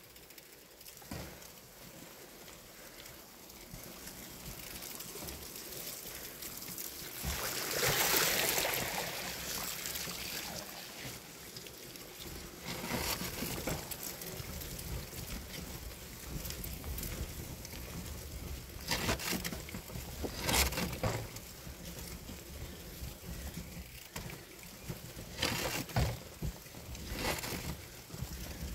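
Bicycle rolling over a grassy dirt track: steady tyre and wind noise, with a louder rush about eight seconds in and several sharp knocks and rattles from bumps later on.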